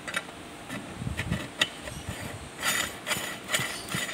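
Metal threaded end ring being screwed onto a manual meat grinder's barrel over the cutting plate: a few sharp metal clicks, then a quick run of scraping strokes as the threads are turned.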